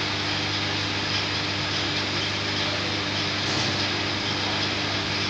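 Steady machine noise from an electric pipe-annealing machine heating a carbon-steel U-bend pipe: a continuous low hum with an even hiss over it, unchanging throughout.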